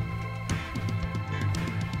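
Background music with a steady beat and a sustained bass line.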